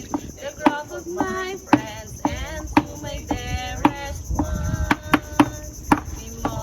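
Background music: a song with a sharp, regular percussive beat under a sung or played melody.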